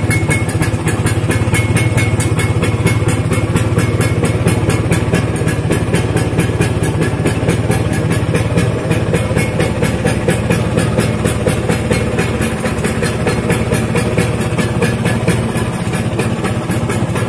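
Vespa Super scooter's two-stroke single-cylinder engine idling steadily on its stand. It is the original engine, left unrebuilt because it still runs well.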